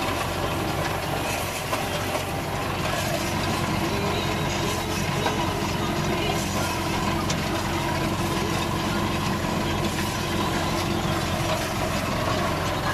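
Tractor engine running steadily under light load at a slow field pace, pulling a hay rake along the swaths.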